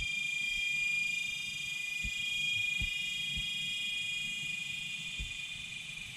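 A cicada chorus makes a steady, high whining drone of several close tones, easing off a little toward the end. A few soft low thumps sit underneath.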